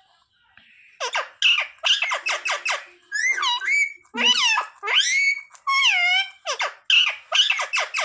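Indian ringneck parakeet chattering: a fast run of short, high chirps starting about a second in, then warbling syllables that swoop up and down in pitch.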